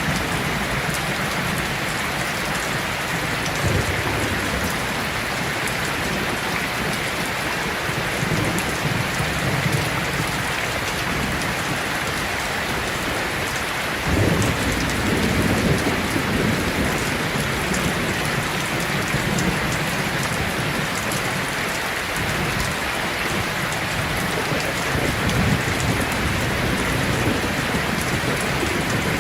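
Heavy rain falling steadily, with low rolls of thunder rumbling in several times; the loudest roll breaks in suddenly about halfway through.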